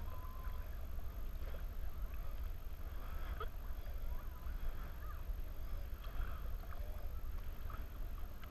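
Double-bladed kayak paddle strokes splashing and dripping in lake water, over a steady low rumble, with short faint chirps scattered throughout.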